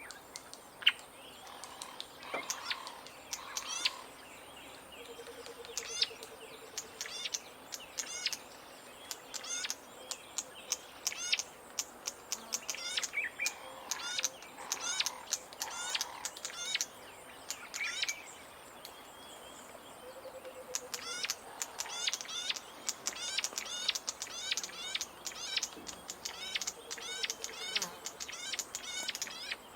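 Bleating warbler (green-backed camaroptera) calling: runs of rapid, sharp, high-pitched notes in repeated bursts, thinning out briefly a few times. Short low buzzy rattles come in three times.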